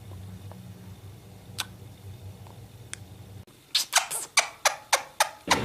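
Parrot giving a quick run of short, harsh bursts, about four a second, starting just past halfway. Before that only a low steady hum and two faint clicks are heard.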